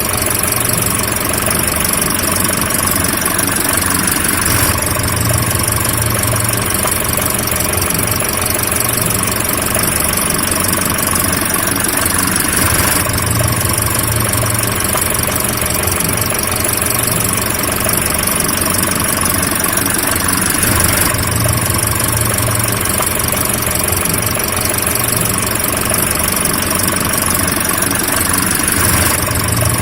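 Car engine running steadily, an unbroken sound whose pattern repeats about every eight seconds, as in a looped recording.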